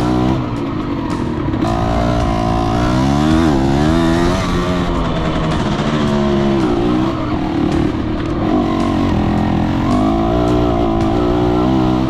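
Yamaha DT125R's single-cylinder two-stroke engine running and being revved, its pitch rising and falling several times, with a peak about three to four seconds in.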